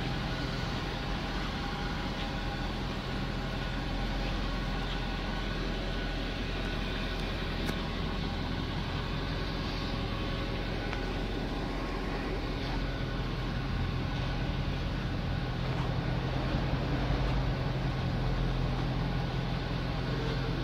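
Mercedes-Benz C63 AMG's naturally aspirated 6.2-litre V8 idling steadily, a little louder toward the end.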